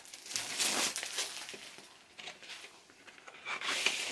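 Thin plastic wrapping crinkling as it is pulled off a vinyl LP and crumpled in the hand. The crinkling comes in two rustling spells, about half a second in and again near the end.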